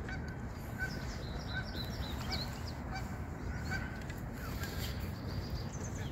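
Distant birds calling: short calls of the same pitch repeated about once a second, with scattered higher chirps, over steady low outdoor background noise.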